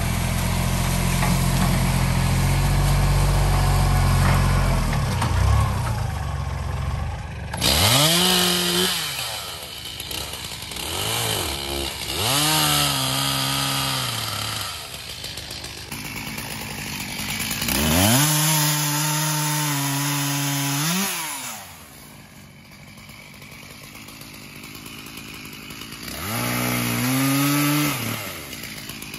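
Kubota diesel tractor engine running steadily for the first several seconds. Then a two-stroke chainsaw revs up about five times to cut through a fallen log, each time climbing to a high whine, holding while it cuts, and dropping back to idle between cuts.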